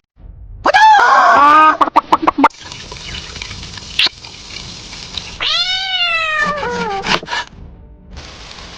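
A cat meows twice: a call near the start that breaks into a few short pieces, and a longer one around the middle that falls in pitch, over a steady hiss.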